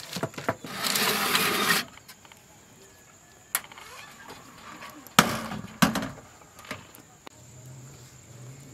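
A baking tray of bread dough slid onto the rack of a small metal gas oven, a scraping rush lasting about a second. Sharp metal knocks follow around the middle, the loudest with a short ring.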